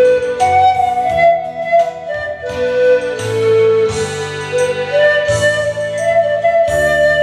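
Pan flute playing a slow melody of long held notes over a recorded accompaniment with a pulsing bass line.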